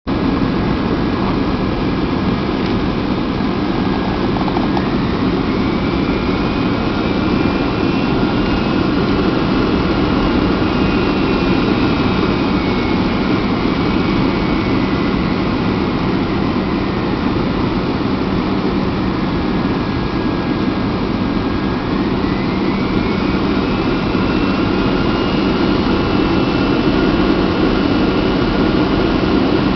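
Cabin noise inside a Boeing 757-200 on approach: a steady loud rush of its twin turbofan engines and airflow, with a thin engine whine that rises in pitch about five seconds in, falls back in the middle, and rises again near the end as engine thrust changes.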